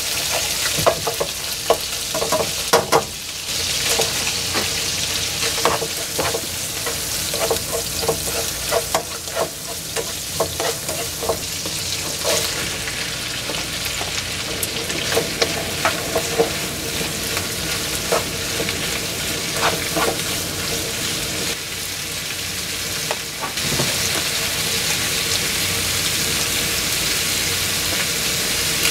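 Canned mackerel and garlic sizzling in oil in a nonstick frying pan, a steady hiss. Tongs clack and scrape against the pan again and again as the food is turned, mostly in the first two-thirds.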